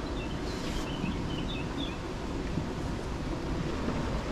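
Steady rushing noise of flowing river water, with a few faint high chirps in the first two seconds.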